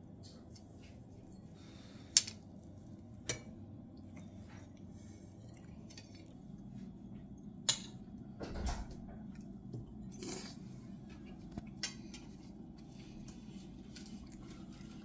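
Cutlery clinking and scraping on china plates during a meal, a scattering of sharp clinks, the loudest about two seconds in.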